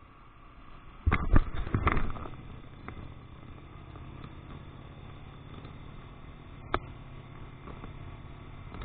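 Onboard audio from a moving Romet ADV motorcycle: a steady low engine hum, broken by loud rumbling bursts of wind buffeting the camera microphone about a second in and again near the end, with one sharp click before that.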